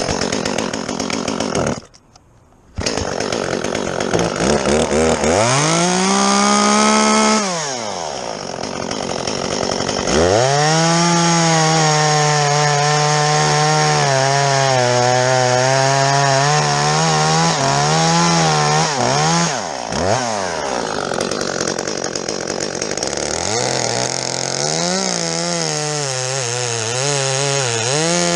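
Chainsaw revving and cutting into fir wood, its engine pitch wavering under load. It briefly drops off the throttle about seven seconds in and again about twenty seconds in. The chain, by the uploader's account, is not very sharp.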